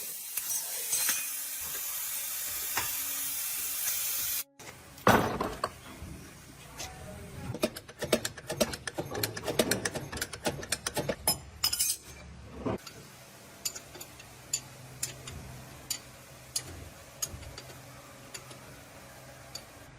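A steady hiss, which cuts off sharply about four and a half seconds in. It is followed by steel tools and parts clinking and knocking against each other: a dense run of clinks for a few seconds, then scattered single clinks.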